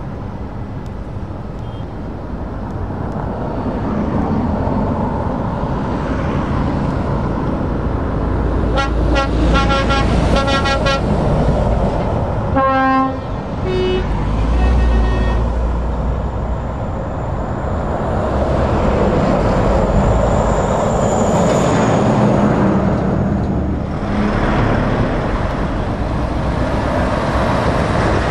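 Heavy trucks driving past on a busy road, engines and tyres running steadily. Partway through, truck horns sound: a quick series of repeated blasts, then a single strong blast and a few shorter toots.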